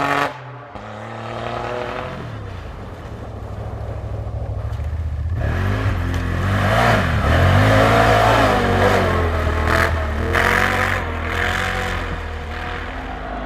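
Rally-raid car engine revving hard and changing gear as the car drives past, loudest just past the middle.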